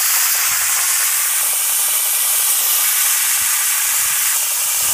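Dupli-Color Bed Armor compressed-air spray gun spraying soapy water in a loud, steady hiss, flushing the pickup hose and tip clean; it stops abruptly near the end.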